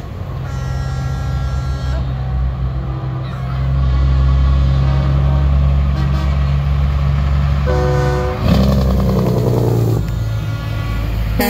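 Parade semi trucks passing with a steady low diesel engine drone that grows louder about three and a half seconds in. Truck horns sound over it: a horn about half a second in lasting over a second, a louder air horn blast about eight seconds in, and another horn starting at the very end.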